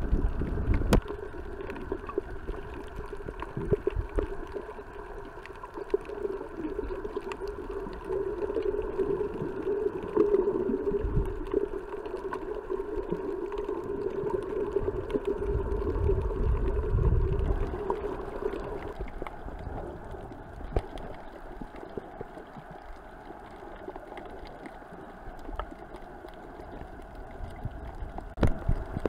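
Underwater sound picked up through a snorkeler's camera: the steady drone of a boat's motor carried through the water, fading out about two-thirds of the way through. Water rushes and low bumps against the camera housing come and go, with a few sharp clicks.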